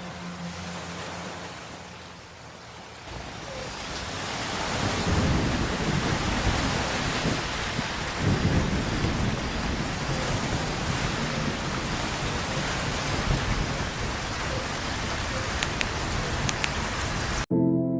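Steady rain hiss with rolling thunder, the deepest rumbles about five and eight seconds in. It cuts off suddenly near the end.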